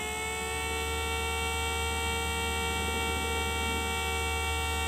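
Route Waker Thunderbolt mini siren, 5/6-port, running at full speed and holding one steady, unchanging siren tone, with a steady low hum beneath it.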